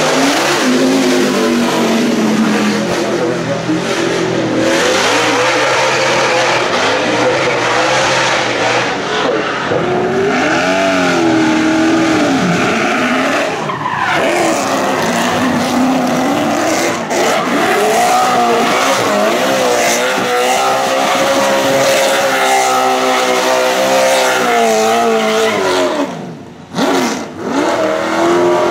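Racing car engines revving hard and rising and falling in pitch, first a NASCAR Chevrolet Monte Carlo's V8, then after a cut a car doing donuts with its tyres squealing and skidding. The sound dips briefly near the end.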